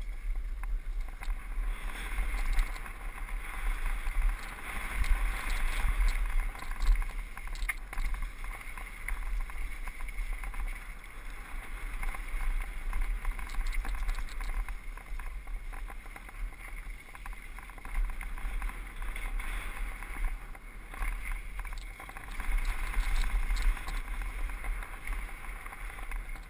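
Wind buffeting the microphone of a helmet- or bike-mounted action camera on a fast mountain-bike descent, a steady rumble and hiss that swells and eases with speed. Short clicks and rattles from the bike going over the dirt trail run through it.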